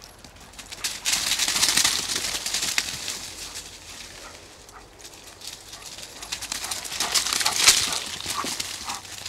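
Dry leaves and twigs rustling and crunching as dogs run and play through them, in two louder stretches about a second in and again near the end, with a few brief dog yelps near the end.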